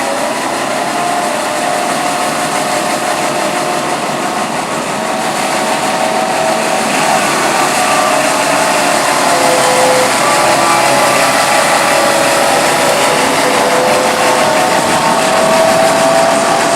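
Tram snow sweeper running: a steady mechanical whirring noise with a wavering whine that rises slightly near the end.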